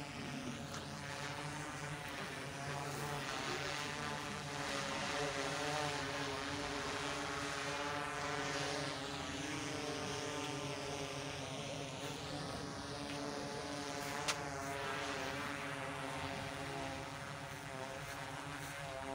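Aircraft engine droning steadily, with a slow sweeping shimmer in its hiss as it passes; one sharp click about three-quarters of the way through.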